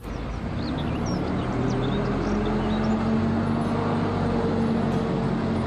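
Red single-decker bus's diesel engine running as it drives through, a steady drone with a hum that grows stronger about two seconds in, over traffic noise. A few short high chirps sound above it.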